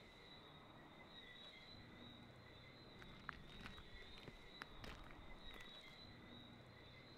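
Faint, steady chirping of crickets, with a few soft footsteps and clicks between about three and six seconds in.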